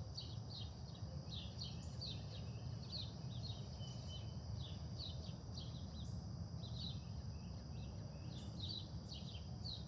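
Birds chirping in many short falling calls over a steady high-pitched insect drone, with a faint low rumble beneath.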